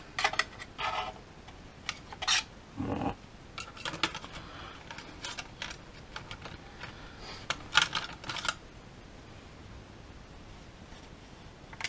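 Hard plastic clicks, taps and small rattles as a DJI Phantom FC40 quadcopter's shell is turned over and handled, with a louder cluster of clicks about eight seconds in.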